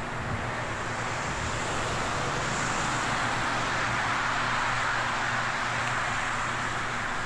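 Road traffic on a wet, slushy street: the hiss of tyres on wet pavement with a low engine hum, swelling as a vehicle goes past in the middle and easing off after.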